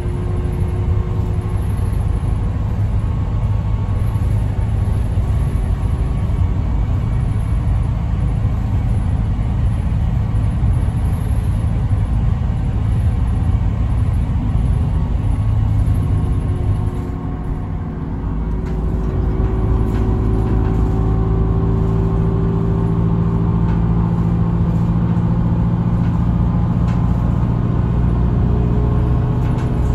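Bus engine and road noise heard from inside the cabin: a steady low rumble. It eases off briefly a little past halfway, then picks up again with a slightly rising engine note.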